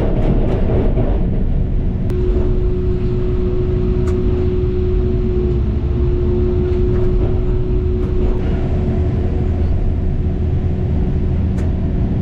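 Heavy construction machine's engine running steadily with a low rumble. From about two seconds in, a steady humming tone rides over it, and a few sharp clicks or knocks sound.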